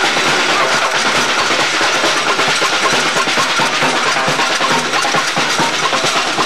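Samba percussion band drumming a dense, steady rhythm, loud and harsh on the camcorder's microphone.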